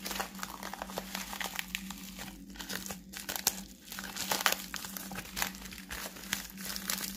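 Packaging crinkling and rustling in the hands as it is unwrapped to get at the cards inside, with many small irregular crackles.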